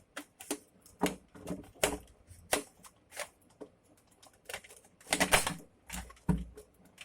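Hard plastic parts of a Nerf Elite Retaliator blaster clicking and knocking as they are handled, in irregular sharp clicks with a denser cluster about five seconds in.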